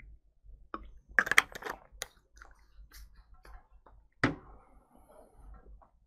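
A man drinking from a plastic water bottle: scattered small clicks, gulps and handling noises of the bottle, with a sharper knock about four seconds in.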